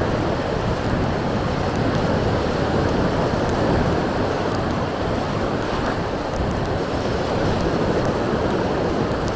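Steady rush of strong wind buffeting the microphone, mixed with surf from the sea.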